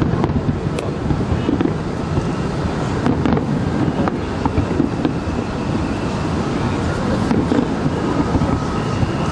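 Steady wind rumble on the microphone with a faint background murmur, and a few faint scattered pops.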